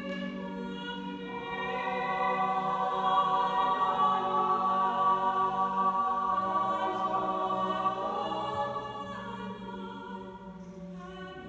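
Mixed choir singing sustained chords unaccompanied, swelling louder a couple of seconds in and softening again near the end.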